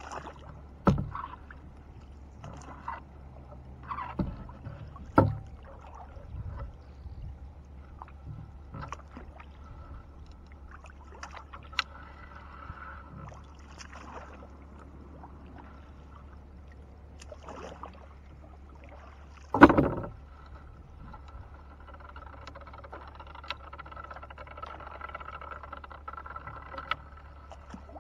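Gill net being paid out over the side of a small wooden rowboat: scattered small splashes and drips of water and knocks on the boat, with one louder thump or splash about two-thirds of the way through.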